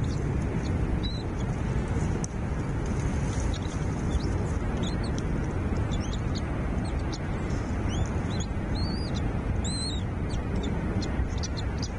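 Small birds giving many short, high chirps that come more often from about halfway through, over a steady low rumbling background noise.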